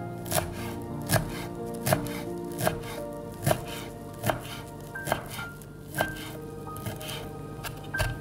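Kitchen knife chopping fresh dill on a wooden cutting board: the blade knocks on the board about every three-quarters of a second, the strokes softer in the second half.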